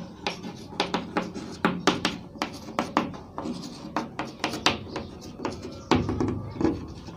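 Chalk writing on a blackboard: a run of short, irregular scratches and taps as numbers and dots are written.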